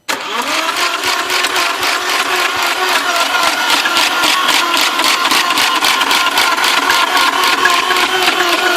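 Starter motor cranking the 2000 Audi S4's 2.7-litre twin-turbo V6 without the engine catching. A whine with a fast, even chugging begins suddenly and keeps going steadily. This is the car's no-start condition.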